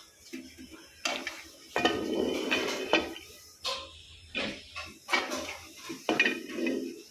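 Metal spoon scraping and clinking against a cooking pot in a series of short, irregular bouts, as the steamed biryani rice is turned over and dished out.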